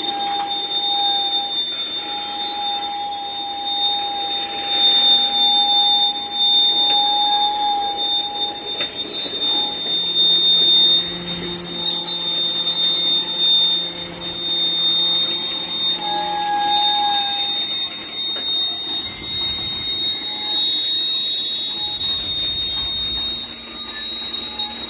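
Open-top hopper cars rolling slowly through a curve, their wheel flanges squealing in several steady high tones that come and go over the rumble of the wheels on the rail.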